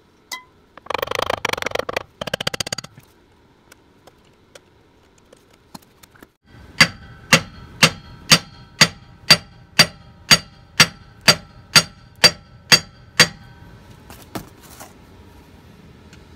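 Hammer striking the rear drive-axle shaft flange at the hub, about fourteen evenly spaced blows, two a second, each leaving a metallic ring; the beating knocks loose the conical wedges that hold the axle shaft in place. A short rattle sounds about a second in, before the hammering.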